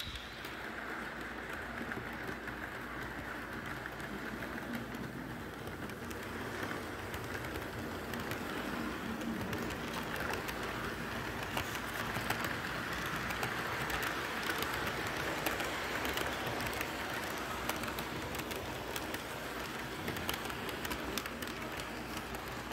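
HO scale model train rolling around its track loop: a steady clattering rumble of small metal wheels on the rails, with many light clicks over the rail joints, a little louder in the middle as the cars pass nearest.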